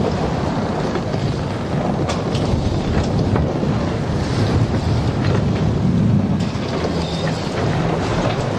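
Wind and sea at sea, as on a ship: a steady rushing noise with a heavy low rumble and a few short knocks.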